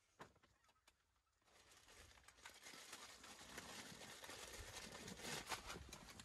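Near silence, with faint rustling and crinkling of many small ticks building from about two seconds in.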